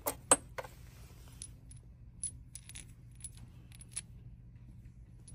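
Steel hex bolts clinking against each other: two sharp clinks near the start, then lighter scattered clinks about every half second, over a low steady hum.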